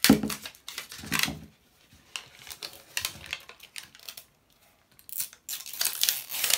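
Toy packaging being handled and opened by hand: uneven rustling, crinkling and clicks, with a denser stretch of rustling near the end.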